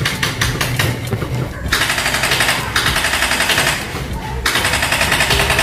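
Airsoft electric guns firing three full-auto bursts of about a second each, with short gaps between them. Before the bursts there is a steady rapid ticking for about a second and a half.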